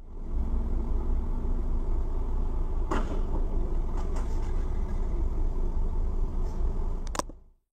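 Dashcam recording from inside a car waiting in traffic: a steady low rumble of engine idle and road noise, with a sharp knock about three seconds in as a turning car strikes a cyclist, and another short sharp click near the end.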